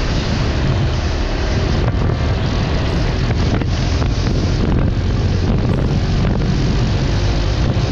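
Wind rushing over the microphone of a TVS Apache RTR motorcycle at highway speed, with the engine running underneath as the bike accelerates.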